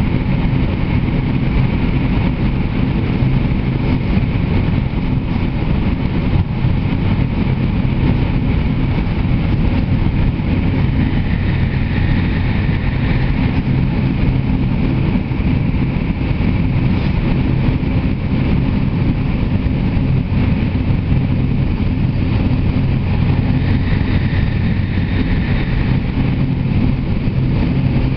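Tohoku Shinkansen bullet train running at speed through a tunnel, heard from inside the passenger cabin: a loud, steady rush of rolling and air noise over a low hum.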